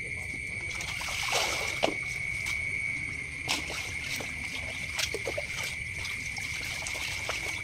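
Water sloshing and splashing in a plastic basin as a plastic basket of small fish is swirled and dipped to wash them, with several sharper splashes. A steady high-pitched whine runs underneath.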